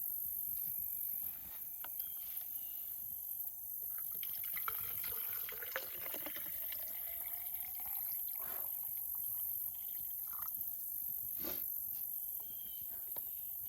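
Tap water poured into the outer cup of a Grayl UltraPress water purifier bottle, its pitch rising as the cup fills, over a steady chorus of crickets.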